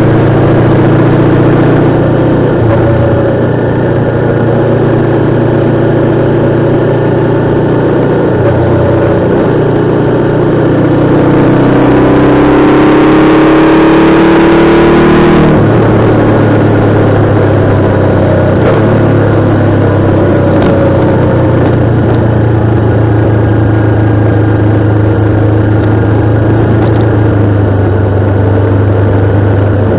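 Motorcycle engine running under way on a circuit. The engine note climbs for a few seconds under throttle, drops abruptly about halfway through, then holds a steady note.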